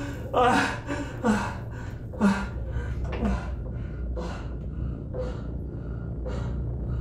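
A man gasping and moaning in distress, short heavy breaths about one a second that grow fainter after the first few, over a low steady hum.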